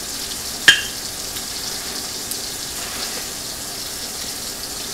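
Steady sizzle of a pork chop searing in a hot pan. About a second in, a single sharp clink as a knife knocks against the crock pot while scraping chopped onion into it.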